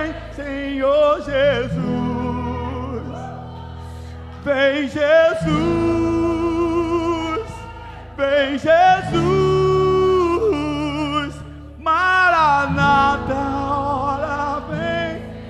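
Live worship band playing slow music under held chords, with a singer's wordless vocal in about four long phrases with strong vibrato.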